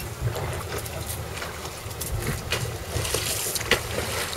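Topwater popper lure splashing as it is worked across the sea surface, a few sharp splashes near the end, over a steady low rumble of wind and boat noise.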